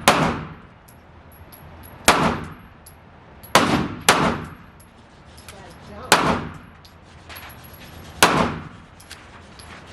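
About six gunshots fired at a shooting range, unevenly spaced and each trailing off in a short ring of echo; two come about half a second apart.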